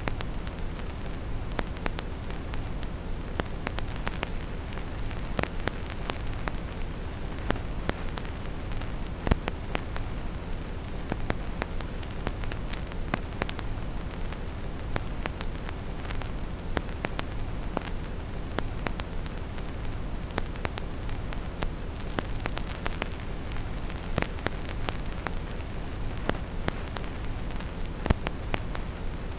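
Vinyl record crackle with no music: irregular pops and clicks from the stylus in the groove, a couple of them louder, over a steady, deep brown-noise hiss.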